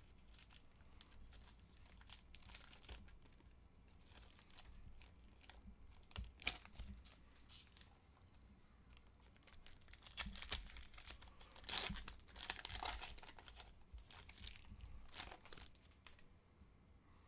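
Foil trading-card pack wrappers crinkling and tearing as they are ripped open by hand. The sound is faint and comes in scattered crackles, thickest about ten to thirteen seconds in.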